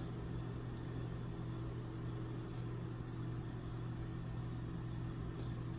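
Steady low hum of room tone, with a few constant low tones and no distinct events.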